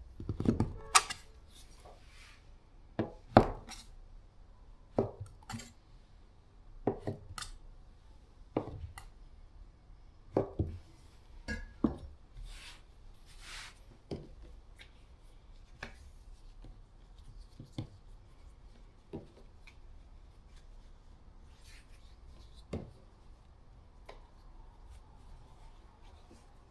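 Irregular sharp wooden knocks and taps of kitchen tools on a board while dough is worked into dumpling wrappers, with soft rubbing between. The knocks come every second or two and are louder in the first half.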